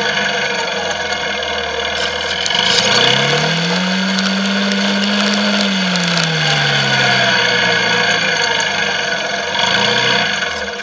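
Quad bike engine revving up about three seconds in, holding a steady higher speed, then easing back down to a low speed, with a short rise again near the end.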